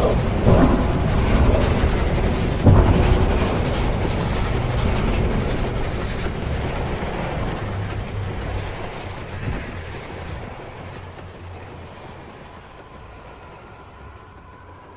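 A train running by, its rumble and clatter with a few sharp knocks early on, then fading steadily away until only a faint hum remains near the end.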